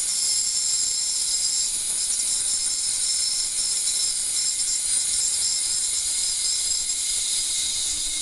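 Ultrasonic waveguide running in water: a steady, high-pitched hiss of cavitation with several steady high whining tones in it, as the water is churned into a cloudy emulsion.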